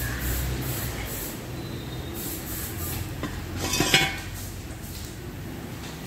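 A brief metallic clatter about four seconds in, as a metal tool or engine part is handled on the workshop floor, over a steady low hum.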